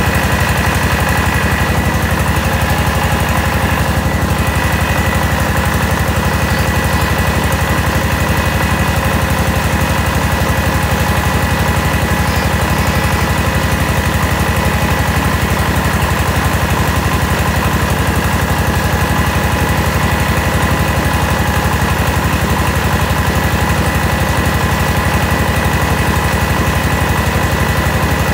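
Mobile rice huller running steadily under load, milling grain. Its engine keeps an even, rapid beat under a steady high whine from the milling machinery.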